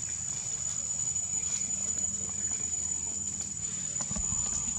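Steady high-pitched insect drone, with a few faint clicks over a low background rumble.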